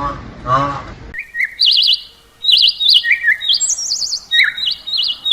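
A songbird singing a run of short, high whistled phrases that jump between pitches, each with a quick warble, with brief pauses between them. In the first second, before the song begins, there is a short, lower pitched voice-like call.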